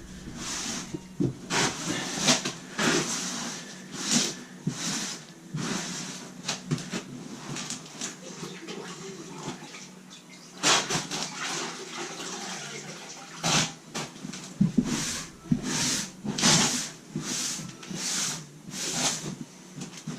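Damp sponge or rag wiping down the subfloor, a series of irregular wet scrubbing strokes about once a second, to clean off dust and dampen the surface so the thinset won't dry out and fail to bond.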